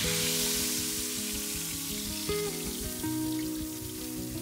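Pork roasts sizzling on the grill rack of a brick stone oven: a steady hiss of fat and juices, strongest in the first second. Background music with held notes plays underneath.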